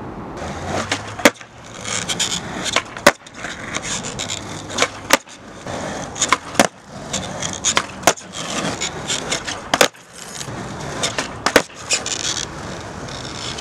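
Skateboard wheels rolling, broken by a series of sharp wooden clacks of the board hitting the ground, about eight across the stretch.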